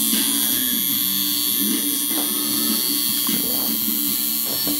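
Micky Sharpz Iron Nitro Dial coil tattoo machine set up as a liner, buzzing steadily as its armature bar hammers against the contact screw. It is running with its capacitor taken out.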